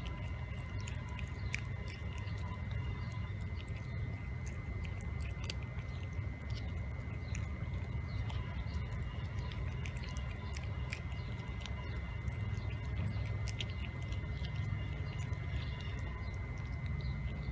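Cat chewing and gnawing on raw chicken wings: many small, sharp, irregular clicks of teeth and mouth, over a steady low rumble and a faint steady high whine.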